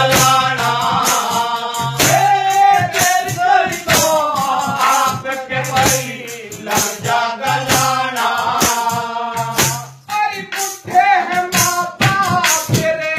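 Haryanvi ragni folk song: a high, wavering singing voice holding long notes, with sharp percussive clicks keeping the beat and a low thud recurring every couple of seconds.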